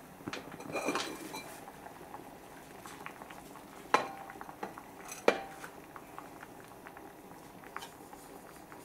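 Donabe clay pot's ceramic lid lifted off with a short scraping rattle, then two sharp ringing clinks of pottery a little over a second apart. Rice porridge simmering in the open pot, with faint bubbling pops throughout.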